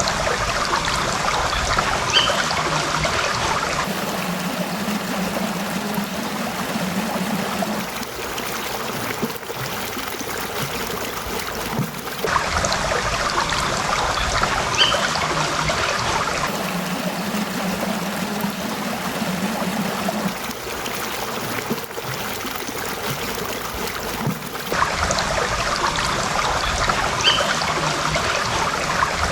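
Small streams trickling and babbling, the sound changing abruptly about every four seconds as one stream recording gives way to another.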